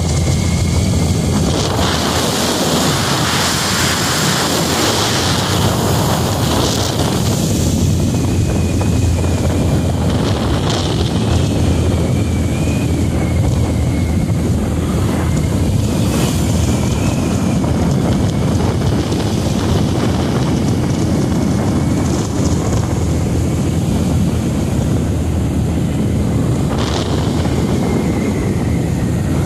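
Motorcycle riding at road speed: steady wind rush on the microphone, with the engine running underneath.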